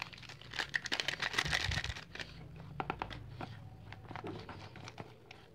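Foil-lined sachet of milk powder crinkling as it is squeezed and emptied into a steel mixing bowl, busiest in the first two seconds, then a few light clicks and rustles.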